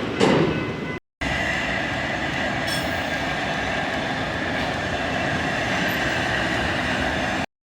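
Freight train cars rolling past: a steady rumble and rush with a thin, steady high squeal from the wheels over it. The sound drops out for a moment about a second in, where one recording is cut to the next.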